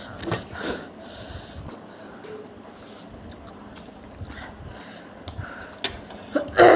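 People sniffling and breathing hard while eating extra-spicy noodles, with scattered small clicks of eating. Near the end a voice lets out a loud cry that falls in pitch.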